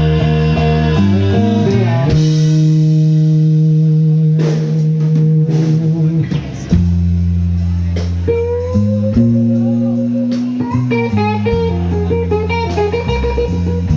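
A live rock band playing an instrumental passage: an electric guitar carries long held notes, bending one up partway through, over bass guitar and drums.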